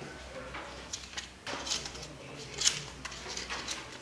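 Paper sticky notes being swept up by hand off a glass tabletop: a run of rustles and sharp little clicks and scrapes from about a second in, the loudest about two and a half seconds in.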